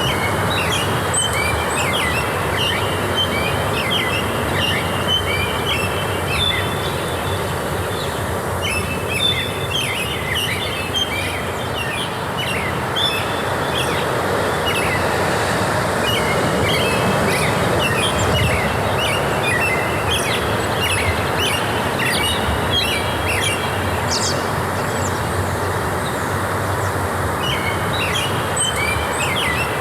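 Forest ambience: many small birds chirping in quick runs of short high notes, over a steady rushing background noise.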